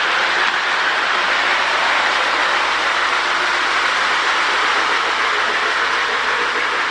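Marx 1666 toy steam locomotive running on its track while pulling a long string of log dump cars: a steady whir of motor and gears, with wheels rolling on the rails.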